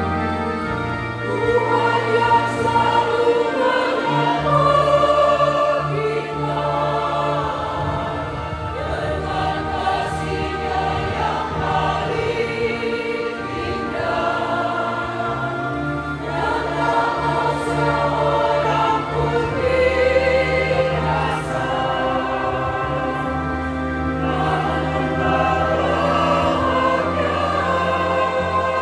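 Church choir singing, with steady held bass notes underneath that change every few seconds.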